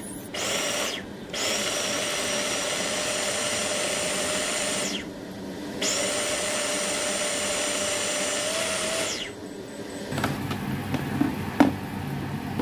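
Baby food maker's blender motor pureeing cooked rice and vegetables in its plastic jug. It runs in three pulses of a few seconds each with a steady whine, then stops. A few plastic clicks and knocks follow near the end.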